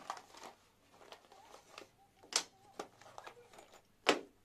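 Light rustling of a bag followed by a few short clicks and taps as pens and highlighters are taken out and set down on a desk; the loudest taps come a little after halfway and near the end.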